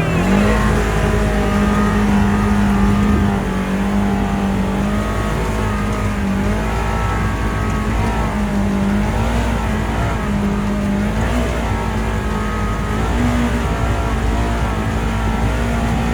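ATV engine running under steady throttle, its note wavering slightly up and down, over a low rumble.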